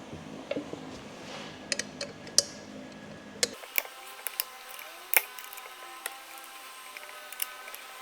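Scattered light metallic clicks and knocks of transmission gears and parts being handled and set down during a teardown.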